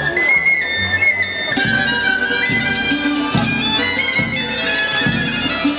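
Hutsul folk band playing live: fiddle melody with accordion, tsymbaly (hammered dulcimer), a wind instrument and a large frame drum. About one and a half seconds in, the drum and accompaniment come in with a steady beat.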